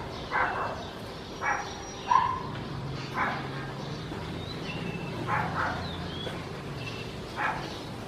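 Short, harsh animal calls repeated about six times at uneven intervals, with a few brief, clear bird whistles between them, over a low steady hum.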